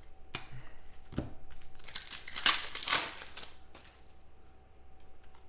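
Trading cards and a foil pack wrapper being handled, crinkling and rustling. There are a few light clicks in the first second, and it is loudest and densest from about two to three seconds in.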